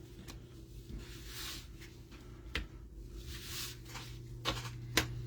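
Trading cards being handled: soft sliding swishes of card stock and a few light clicks and taps, over a steady low electrical hum.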